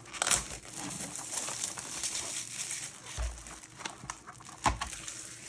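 Thin cellophane wrapper crinkling as it is peeled off and crumpled from a cardboard crayon box, with a couple of soft knocks of the box against the desk about three and four and a half seconds in.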